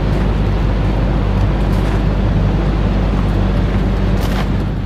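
Diesel truck engine idling steadily with a low, even hum.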